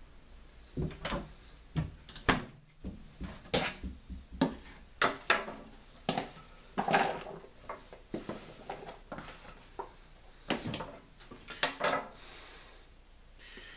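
Kitchen knife and hands on a wooden cutting board: irregular knocks and taps as a white onion is chopped and the diced pieces are gathered up.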